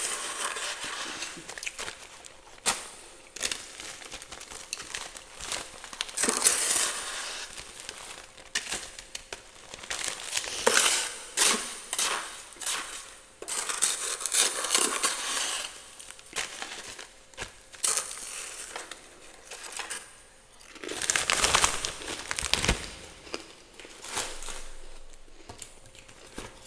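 Spoon or spatula scraping and breaking up frost and ice built up inside a freezer, in irregular bursts of gritty scraping with sharp clicks and crunches, loudest about three quarters of the way through.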